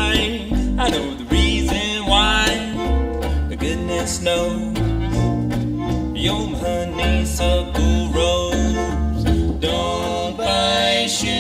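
Western swing band playing an instrumental break: fiddle carrying the melody over strummed archtop guitar and plucked upright bass. Near the end the fiddle drops out.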